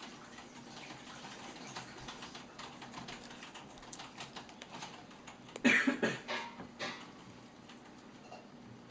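Small irregular clicks and rustles of hands handling feathers and plastic heat shrink tubing, with a louder cluster of clicks a little past halfway.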